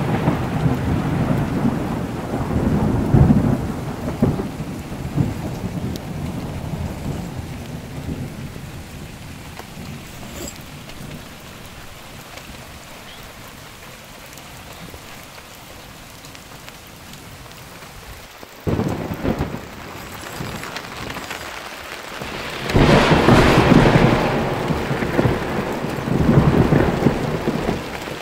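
Rain falling with rolling thunder. A long rumble fades away over the first several seconds, leaving the rain alone; then thunder breaks in suddenly past the middle and is loudest in the last few seconds.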